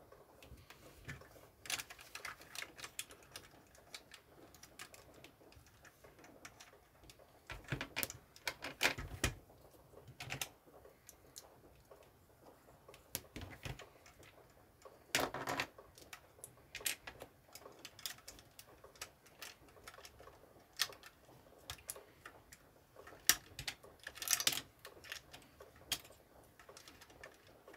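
Plastic LEGO bricks and parts clicking and snapping together as they are handled and pressed on, in irregular small clicks with a few louder clusters.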